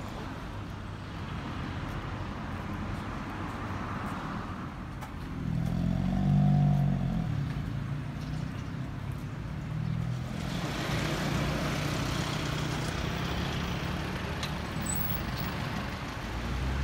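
Road traffic: cars and trucks passing, with one vehicle's engine growing loud around six seconds in and a broader hiss of passing traffic from about ten seconds in.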